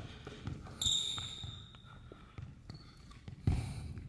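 Basketball bouncing on a hardwood gym floor during a one-on-one game, with high sneaker squeaks about a second in and again near three seconds. A louder thud comes about three and a half seconds in.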